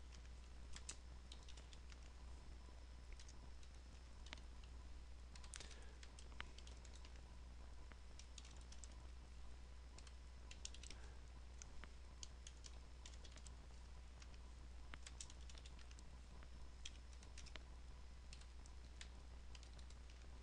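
Faint, irregular keystrokes on a computer keyboard, typing code, over a steady low electrical hum.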